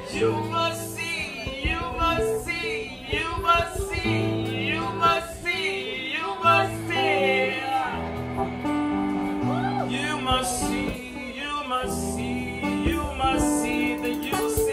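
Live band music with a singer: a sung melody over acoustic guitar, keyboard and drums, with a steady bass line beneath and cymbal strokes.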